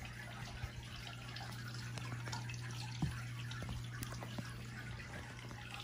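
Faint wet smacking and a few light clicks of animals nibbling and licking at food close to the microphone, over a steady low hum.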